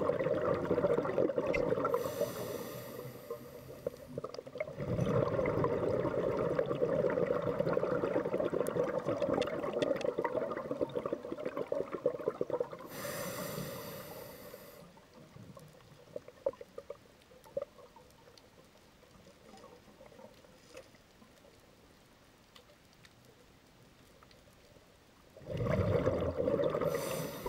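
Scuba diver breathing through a regulator underwater: a rumble of exhaled bubbles, a short hiss of inhalation about two seconds in, a long bubbling exhale, and another inhale hiss. A quieter stretch with faint ticks follows, then another burst of exhaled bubbles near the end.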